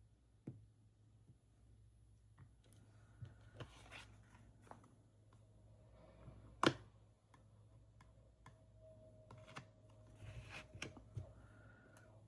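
Small clicks and taps of nail stamping tools being handled, with one sharper click about seven seconds in, over a faint steady low hum.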